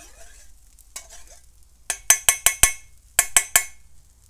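Stainless steel bowl clinking as cooked onions are scraped and knocked into it. There is a quick run of about five sharp metallic taps about two seconds in, then three more a second later, each ringing briefly.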